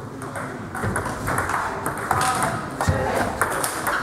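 Table tennis rally: the ball clicking sharply off the bats and the table top, a quick, irregular run of hits and bounces.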